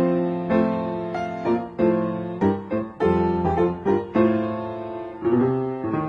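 Solo piano music: struck chords and short runs of notes, each fading after it is played.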